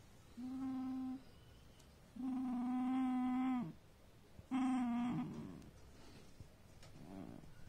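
A dog making long, low whining moans, three in a row, each held on one steady pitch; the second is the longest and falls off at its end, and a faint shorter one follows near the end.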